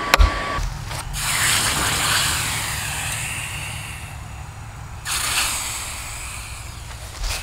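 One last hammer blow ringing on the iron pipe tee clamped in the vise, then the hot forged tee is plunged into a bucket of water and sizzles with a loud hiss. It is lifted out about four seconds in and dipped again about a second later, sizzling once more.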